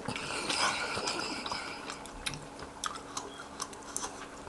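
Close-miked chewing of beef stew, with wet mouth sounds and small crackly clicks.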